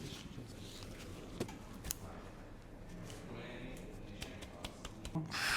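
Quiet rustling and handling during a chiropractic session, with scattered light clicks, then a loud breathy exhale that starts near the end.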